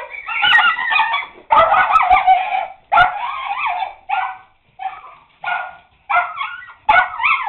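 Dog barking repeatedly in a run of about eight loud barks, some drawn out nearly a second, at something outside.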